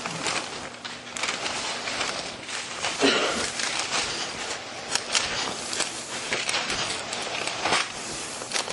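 Thin Bible pages rustling and flicking as they are leafed through to find a passage: an irregular crackly rustle with sharp page flips.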